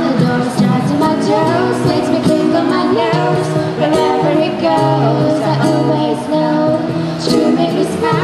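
Live acoustic song: a female voice singing over an acoustic guitar, with a cajon keeping the beat.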